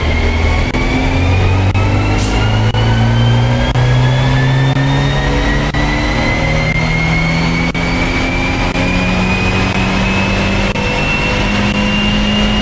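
Abarth 124 Spider's turbocharged 1.4-litre four-cylinder at full throttle on a chassis dyno, breathing through a valved Ragazzon quad exhaust. The revs climb steadily and unbroken through one long pull, and a high whine rises alongside, heard from inside the cabin.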